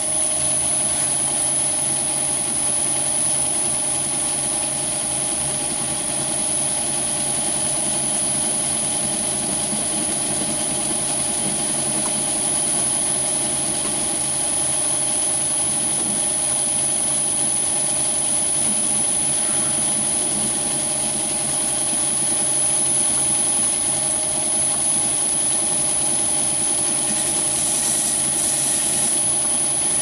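Myford ML7 lathe running steadily, its four-jaw chuck spinning while a carbide-insert tool takes a facing cut across the end of a small metal part. A constant motor and drive hum with a thin high whine over it.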